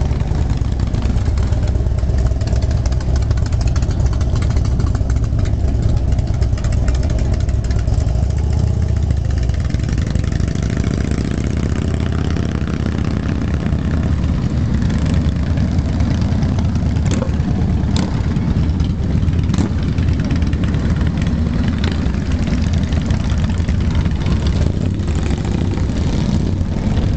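Cruiser motorcycles, Harley-Davidson types among them, running as they ride slowly past: a deep, steady engine rumble, heaviest in the first ten seconds or so. A few sharp clicks come about two-thirds of the way through.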